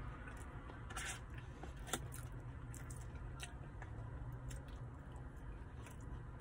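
A person chewing a mouthful of chili cheese fries, with scattered clicks and scrapes of a plastic fork against a paper fry tray, the sharpest about two seconds in, over a steady low hum.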